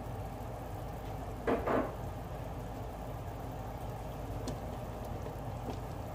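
Pot of soup broth simmering on the stove, a steady low bubbling hiss. About a second and a half in come two brief louder sounds close together.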